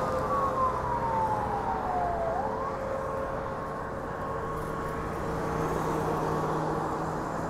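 Siren of a red ambulance-style emergency truck driving away: one slow wail falling in pitch for about two seconds, turning to rise again, then fading into road traffic noise.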